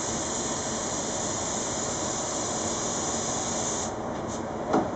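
Compressed-air spray gun hissing steadily as it sprays clear lacquer onto a guitar body. The sharp upper part of the hiss cuts off about four seconds in as the trigger is let go.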